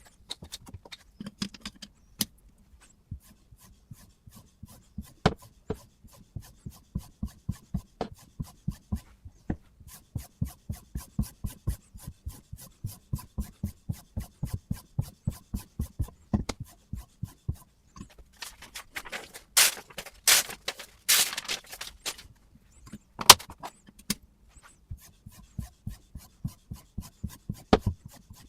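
Sharpening stone on a guided-angle knife sharpener stroking along a kitchen knife blade: a long run of short, even rasping passes. About two-thirds of the way through come a few louder, longer scrapes, then a sharp knock.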